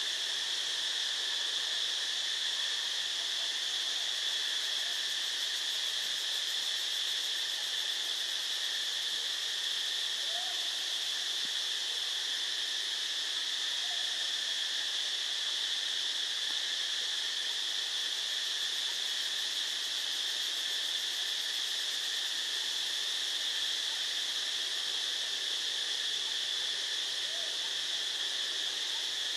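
Steady, shrill drone of forest insects, unchanging throughout, with a few faint short calls from a distant animal now and then.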